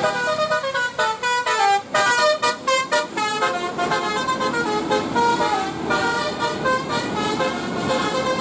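Bus 'telolet basuri' multi-tone air horn playing a quick melody, its notes stepping up and down several times a second.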